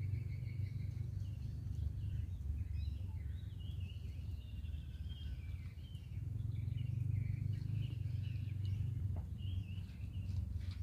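Small birds chirping and twittering over a steady low rumble of wind on the microphone, the rumble swelling for a few seconds after the middle.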